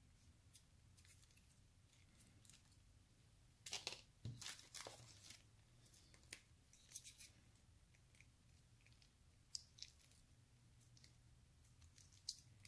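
Small ketchup packets being torn open and squeezed: a few faint short rips and crinkles, the loudest cluster about four seconds in.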